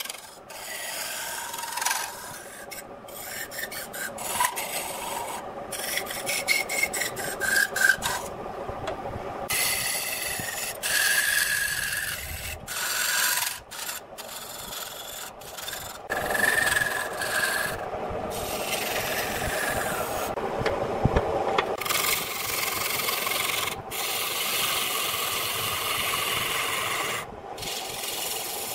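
Turning gouge cutting a wooden vase blank spinning on a wood lathe: a steady hiss of shavings peeling off the wood, broken by many brief gaps.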